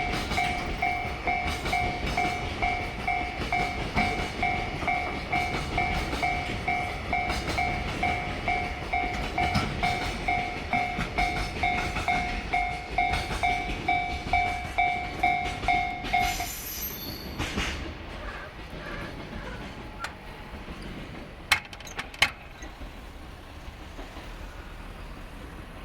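Koki container wagons' wheels clattering rhythmically over rail joints as the freight train passes, under a level crossing's electronic two-tone warning bell ringing in steady pulses. The bell cuts off about 16 seconds in as the train clears; the clatter fades soon after, and two sharp clicks follow near the end.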